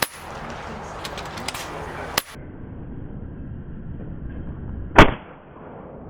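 PCP air rifle shots: sharp single cracks just at the start and about two seconds in, then a much louder one about five seconds in with a short ringing tail.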